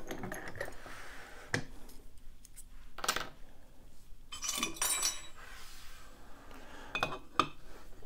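Brass euro profile lock cylinder being handled, taken out of a vise and set down on a metal pinning tray. A handful of sharp metallic clicks and clinks, with a busier stretch about halfway and two more knocks near the end.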